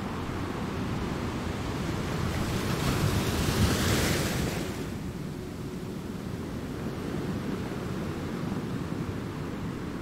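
Shore ambience of wind and water: a steady low wind rumble on the microphone, with a hissing rush that swells and fades again around three to four seconds in.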